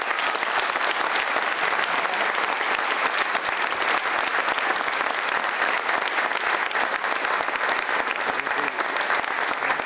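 A large audience applauding steadily: dense clapping from a full hall, in approval of a proposal just put to it.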